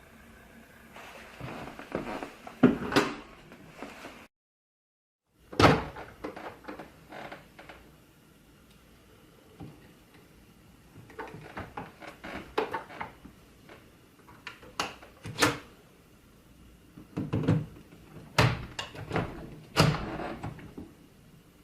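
Irregular clicks and knocks of hard objects being handled, coming in clusters, with a sudden cut to silence for about a second about four seconds in.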